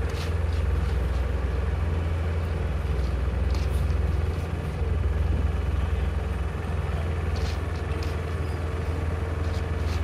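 A LeeBoy 1000F asphalt paver's diesel engine running with a steady low hum. A few short scrapes of rakes and shovels on hot asphalt come about three and a half seconds in and again near the end.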